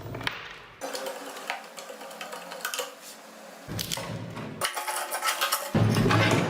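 Rusty metal vegetable grater being worked on with hand tools: a run of metal clinks, taps and scrapes, cut into several short takes that start and stop abruptly.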